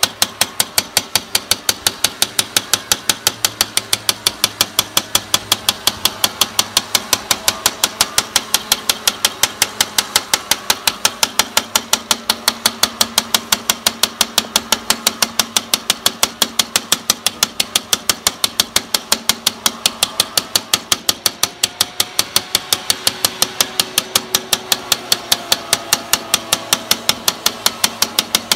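Rapid, even tapping of a glass cutter's ball-ended handle on a scored glass pane, about five sharp taps a second, to run the cracks along a scored circle and grid so the hole can be knocked out.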